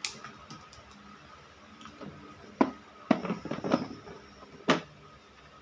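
Tools and a plastic solar charge controller being moved about and set down on a plywood board: a sharp knock near the start, another knock and a cluster of rattling clicks in the middle, and one more knock near the end.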